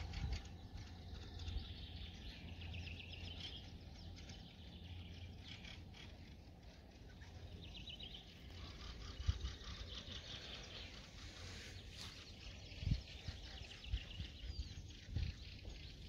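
Nightingales singing, several phrases of fast repeated trilled notes. Under the song is a low rumble with a few dull thumps.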